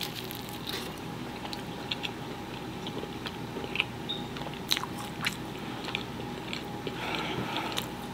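Close-up mouth sounds of a person chewing a bite of birria pizza with a crisp, charred crust: wet chewing with sharp little crunches scattered through, a few louder ones near the middle and near the end.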